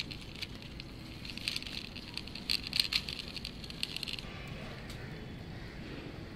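Small wheels of a die-cast toy pickup truck rolling and grinding over rough concrete as it is pushed by hand: a gritty crackle with small clicks that stops about four seconds in, over a low background rumble.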